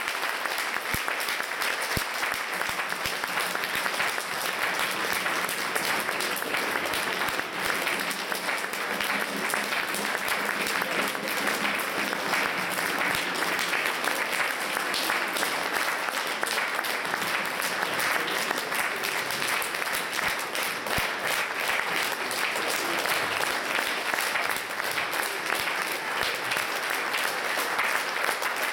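Audience applause: dense, steady clapping from a concert hall crowd.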